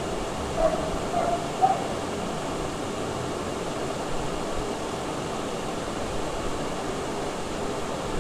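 Steady hissing background noise, with three short faint calls about half a second apart in the first two seconds.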